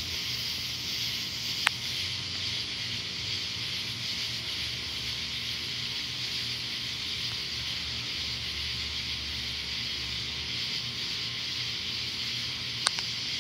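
Steady, high-pitched hiss of a night insect chorus. A low rumble swells for a few seconds in the middle, and there are two sharp clicks, one near the start and one near the end.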